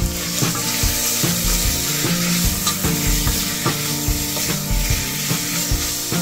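Chopped bacon sizzling as it fries in a stainless steel pot, stirred with a wooden spatula. Background music with a steady beat runs underneath.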